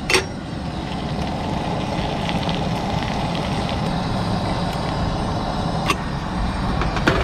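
Metal cooking-pot lid clinking as it is lifted off a small pot on a camp stove, then clinking again a few times as it is set back on near the end, over a steady rushing background noise.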